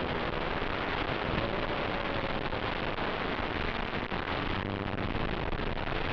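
Audio of the FPV drone's onboard video feed: a steady hiss with a faint tone underneath that slowly wavers in pitch.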